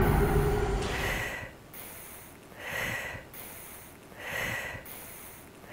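A woman sniffing up close at a man to smell his scent: three long sniffs in a row, about a second and a half apart, as music fades out at the start.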